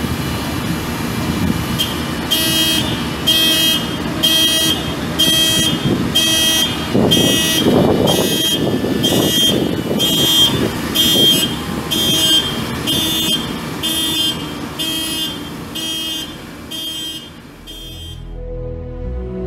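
Work-machine warning beeper sounding over and over, about once a second, each beep a buzzy tone, above a running engine's rumble that swells in the middle; the beeping stops near the end.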